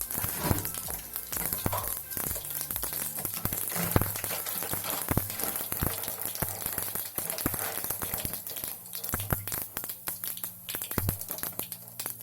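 Mustard seeds and urad dal spluttering in hot oil in a pan: dense, irregular sharp pops over a steady sizzle, the sign the oil is hot enough for the tempering.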